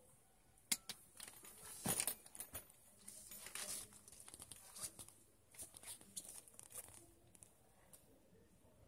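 Leather briefcase being opened and handled: a sharp click about a second in as the brass clasp lock releases, then the flap lifting and the leather pockets rustling and rubbing under the hand, with scattered soft clicks and scuffs.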